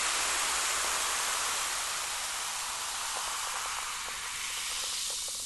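A steady hiss that slowly fades, with faint crackles starting about halfway through.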